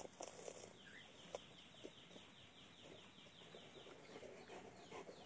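Golden retriever chewing something hard, with scattered crunches and clicks. A bird calls throughout in a quick run of short falling notes, about four to five a second.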